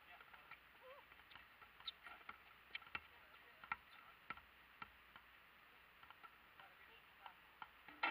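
Faint, irregular knocks of a basketball bouncing on an asphalt court, the loudest near the end.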